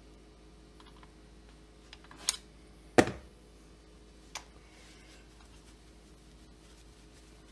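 Three sharp knocks and clicks of handling work on a chainsaw crankcase being screwed together, the second, about three seconds in, the loudest; a faint steady hum underneath.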